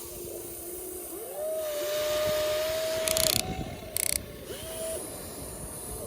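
Small electric motors of a radio-controlled toy construction vehicle whining as it works. The pitch rises about a second in and holds, then stops, with two short grinding rattles from its gears.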